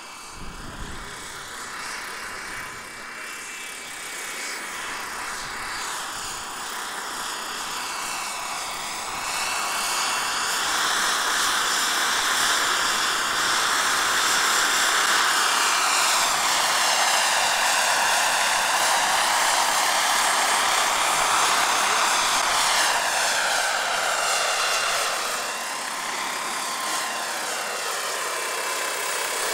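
Scale model Bell 47 helicopter with a Wren 44 turbine flying: a steady turbine whine over rotor and blade noise that shifts as the model moves around. It grows louder about a third of the way in and eases a little near the end.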